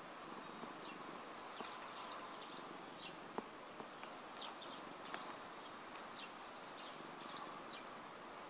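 Faint outdoor ambience: a steady insect-like buzz with short high chirps scattered throughout, and a few sharp clicks.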